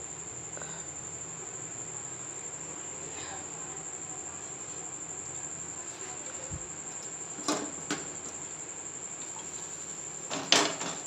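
A steady, high-pitched whine held on one tone, with a few sharp knocks about two-thirds of the way in and again near the end.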